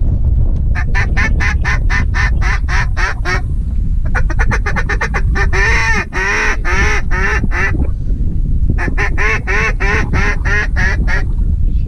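Mallard duck call blown in three runs of rapid quacks, the middle run with longer, falling notes, calling to passing mallards. A low rumble of wind on the microphone sits underneath.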